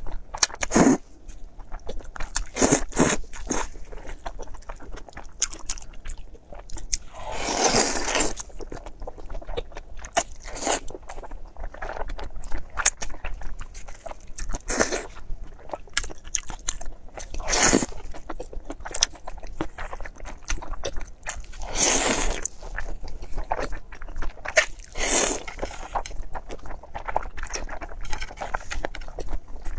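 A person slurping wide flat noodles and chewing, with wet, clicky mouth sounds and several longer slurps spread through.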